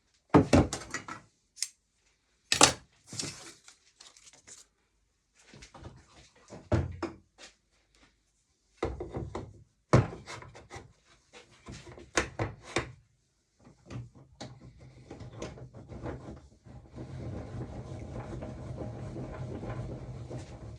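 Pieces of wood being handled and set down on a workbench: a string of sharp wooden knocks and clatters with short pauses between them. About two-thirds of the way in, a steady rough noise starts and keeps going, as work on the wood begins.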